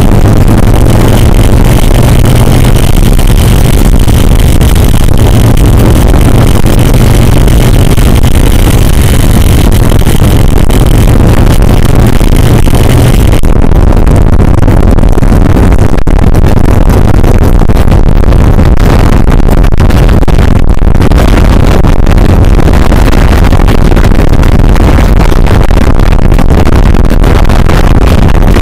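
Big Dog motorcycle's S&S V-twin engine running on the move, drowned in heavy wind buffeting on the microphone. A steady engine drone with a high tone above it carries through the first half, then drops away about halfway through, leaving mostly wind rumble.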